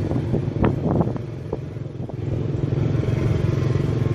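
Vehicle engine running steadily, with a few short knocks or rattles about a second in and a brief easing of the engine near the middle.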